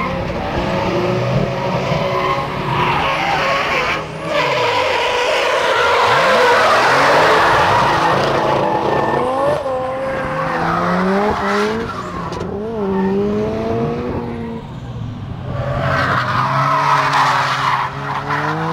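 Drift car sliding under power: its engine revving up and down in rising and falling sweeps while the rear tyres screech. The tyre screech is loudest for several seconds in the first half and again near the end.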